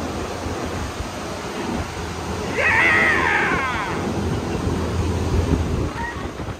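Hurricane-simulator fan blasting wind across the microphone, a steady rush of noise. About two and a half seconds in, a person lets out a high-pitched shriek lasting about a second.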